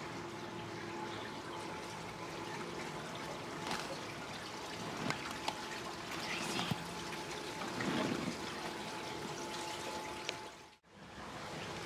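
Water trickling and lapping along the hull of a slow-moving canal boat, over a faint steady hum. The sound drops out for a moment near the end.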